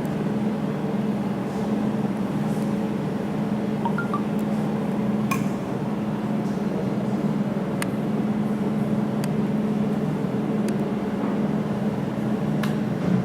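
Jewelry laser welding machine running with a steady hum from its cooling system, and several sharp ticks one to two seconds apart in the second half as the laser fires single pulses on a stainless steel piece.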